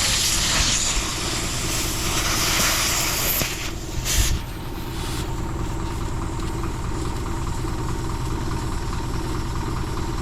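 Air hissing loudly for about three and a half seconds, then a short burst of hiss about four seconds in, as the tyre valve is refitted after inflation. Under and after it the Isuzu truck's engine idles steadily.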